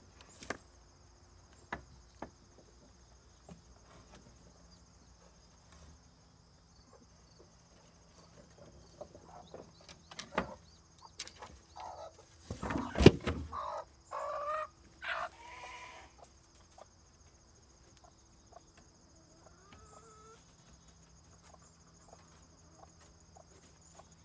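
Broody mother hen squawking and clucking as she is taken from her nest, a burst of loud, pitch-bending calls in the middle, among scattered knocks on the wooden coop.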